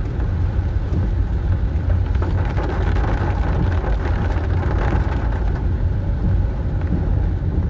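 Heavy rain falling: a steady hiss over a deep continuous rumble, swelling slightly a few seconds in.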